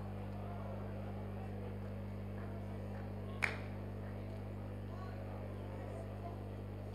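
Steady low electrical hum from the sound system, under a faint murmur of voices praying quietly, with one sharp click about three and a half seconds in.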